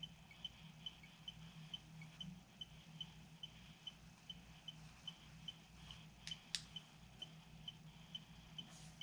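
Near silence with a faint high chirp repeating about twice a second over a low steady hum, and two sharp clicks about six and a half seconds in.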